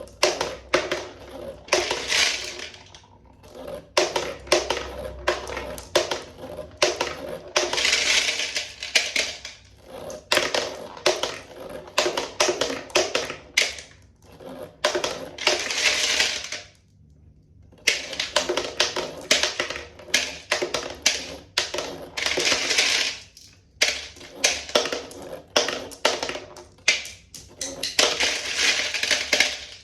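Marbles clacking and rattling down a toy marble run: a steady stream of sharp clicks with bursts of dense rattling every few seconds as batches of marbles pour through, and a short pause a little past halfway.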